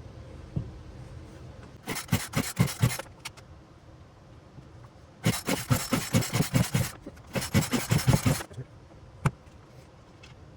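Poulan Pro 42 cc chainsaw's recoil starter cord pulled three times, the two-stroke engine cranking over in quick pulses without catching. A single sharp click follows near the end.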